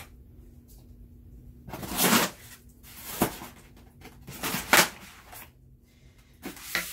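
Packing materials being handled: about four short rustles and knocks, a second or so apart, as styrofoam and plastic are moved about.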